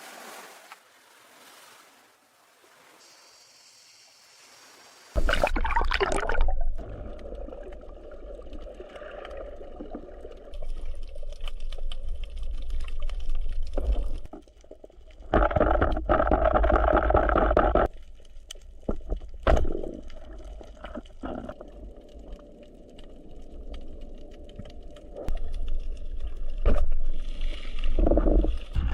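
Water splashing and trickling, starting suddenly about five seconds in after a quiet opening, with louder stretches of sloshing along the way.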